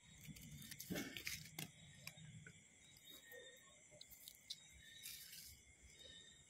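Faint rustling and crackling of dry grass and soil as fingers grab at an insect, with a few soft clicks about a second in.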